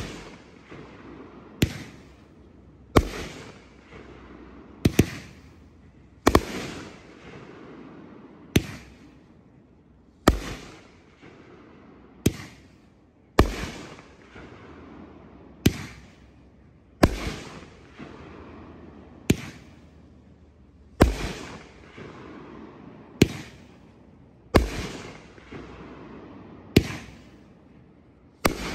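A 500 g, 16-shot consumer fireworks cake (red tail to golden willow to white strobe) firing shot after shot: a sharp bang about every one and a half to two seconds, each fading away briefly before the next.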